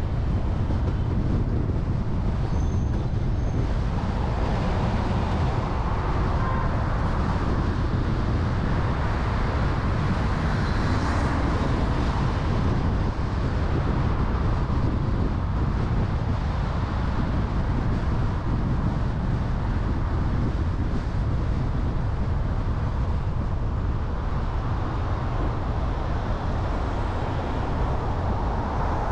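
Steady street ambience with a constant low rumble of traffic noise and no distinct single event.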